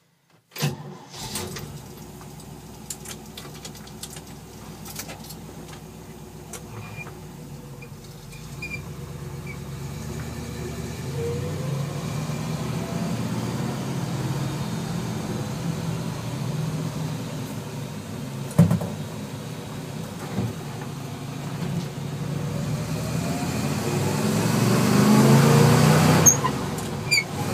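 A 1958 Chevrolet 2.5-ton truck's engine pulling away and accelerating, heard from inside the cab: a low hum that climbs in pitch and grows louder, loudest a couple of seconds before the end. One sharp knock about two-thirds of the way through.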